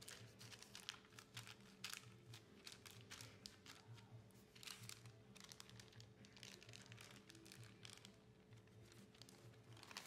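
Faint rustling and crinkling of wax paper rubbed down by fingertips over a gel printing plate, a scatter of soft clicks. Near the end comes a slightly louder rustle as the paper print is peeled up off the plate.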